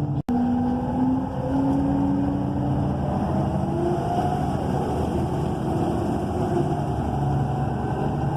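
Inside the cabin of an ENC EZ Rider II transit bus, its Cummins Westport ISL G natural-gas engine and Allison automatic transmission running under way, with engine tones rising in pitch as the bus accelerates through the first few seconds. The sound drops out for an instant just after the start.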